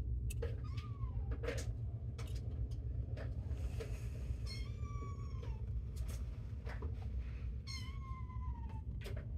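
A kitten meowing three times: a short call near the start, then two longer drawn-out meows around the middle and near the end, each sliding down in pitch as it ends. Scattered light clicks of handling sound over a steady low hum.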